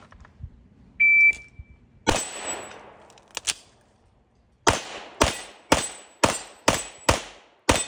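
A shot timer beeps once, then a Glock 34 9mm pistol fires about eight shots: one a second after the beep, a short pause, then a quick string about two shots a second. Steel dueling-tree paddles ring as they are hit.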